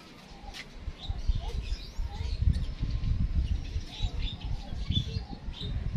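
Small birds chirping in short, high calls, over a low, uneven rumble on the microphone that starts about a second in and is the louder sound.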